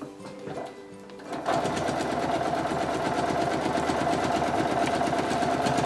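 Janome Memory Craft 6500 computerized sewing machine sewing a seam through foundation paper and fabric. It starts about a second and a half in and runs fast and steady: rapid needle strokes over a steady motor hum.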